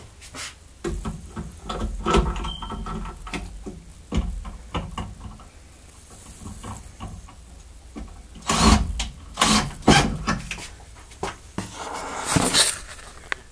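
Scattered clunks and knocks of hands handling tools and wood, with a few louder bangs near the end.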